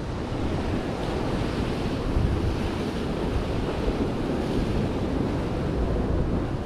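Ocean surf washing and breaking over jetty rocks, steady throughout, with wind buffeting the microphone.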